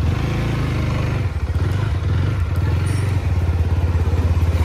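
TVS Apache RTR 160 4V's single-cylinder engine running as the motorcycle pulls away at low speed, its note easing briefly about a second in before steadying again. The rider judges the engine to sound fine after its crash repair.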